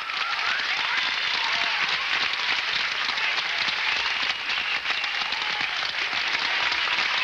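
An audience applauding steadily: dense clapping with a few faint sliding tones over it.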